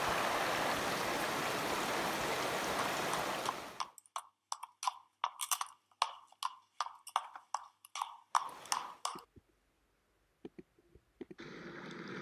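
Shallow rocky stream running, with a donkey wading through it; the water noise cuts off about four seconds in. Then a donkey makes a run of short crisp crunches, about four a second, for around five seconds, followed by near silence.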